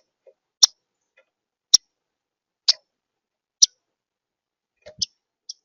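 Short, sharp clicks from a bird at a feeder, five evenly spaced about once a second, then a softer cluster with a dull thump near the end.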